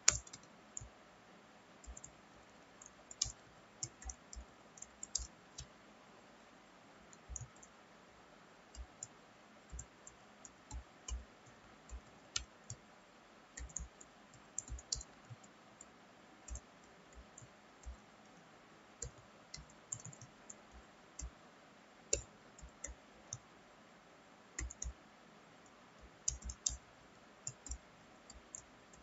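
Typing on a computer keyboard: irregular keystroke clicks in short runs, with brief pauses between them.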